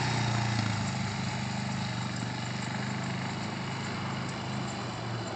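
Sport quad's engine running at low, steady revs as the quad pulls away at walking pace, gradually growing fainter.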